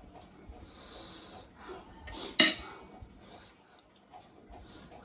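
Eating at the table: an airy slurp of noodles being sucked in about a second in, then one sharp clink of cutlery on a glass plate about halfway through, among small chewing and utensil noises.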